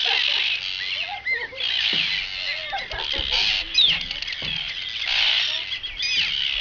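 A colony of Arctic terns calling in a dense, continuous chorus of harsh, high, overlapping cries, the alarm of birds defending their nests against an intruder.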